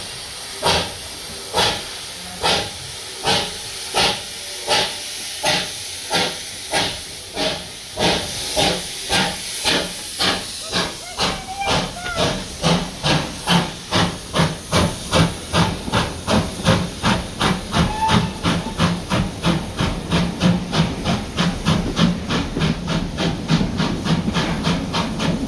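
Steam locomotive pulling away, its exhaust beats speeding up steadily from a little over one a second to about three or four a second as the train gathers speed.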